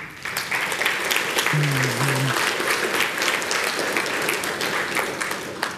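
Audience applauding a finished talk: dense clapping that starts right away and dies down near the end.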